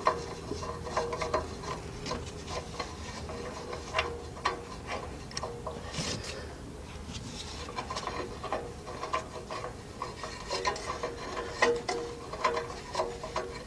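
Scattered light metal clicks and scraping as a nut is run up an exhaust flange bolt with a 14 mm deep socket on an extension, turned by hand, with a faint steady hum underneath.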